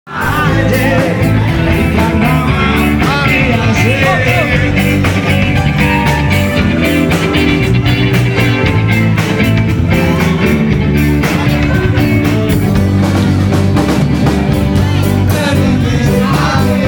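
Live band music played loud through a PA: drums, bass, keyboard and guitar keeping a steady beat under a sung melody.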